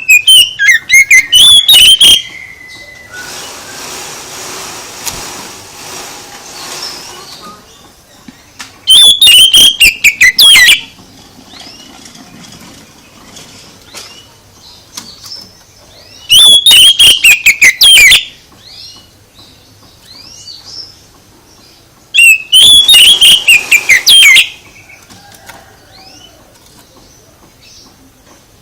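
Bird song in loud bursts of rapid, falling notes, each about two seconds long, repeated four times with pauses of several seconds. Faint chirps come between the bursts, and a rustling noise a few seconds in.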